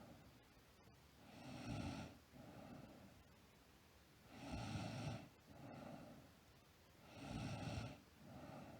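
A sleeping girl snoring in a slow, even rhythm, three breaths in all. Each is a longer, louder snore followed by a shorter, softer one, about every three seconds.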